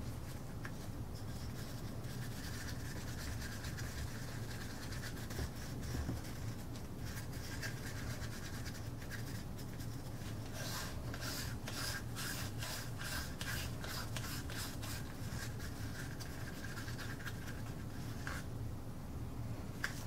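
Stir stick scraping and rubbing around the sides and bottom of a small cup of mixing resin, with a run of quicker, regular strokes through the second half. A steady low hum sits under it.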